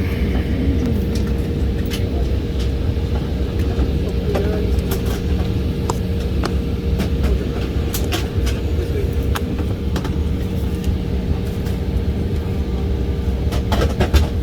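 Airliner cabin noise: the jet engines running at ground idle before takeoff, a steady low rumble with a constant hum over it and a few faint clicks.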